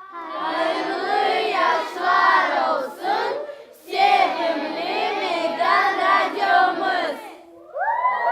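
A group of children singing together in two phrases, followed near the end by a long, drawn-out group cry that falls in pitch.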